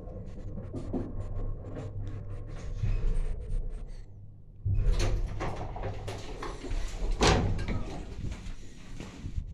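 Lift car running with a steady low hum and regular clicking, which stops as the car halts about four seconds in. Then the car's stainless-steel sliding doors open with a loud rattle, and a door bangs about seven seconds in.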